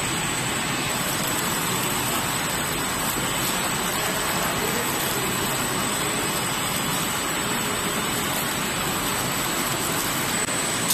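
Rotary hot-melt glue labeling machine and bottle conveyor running at production speed: a steady, dense mechanical noise with a thin, high-pitched whine over it.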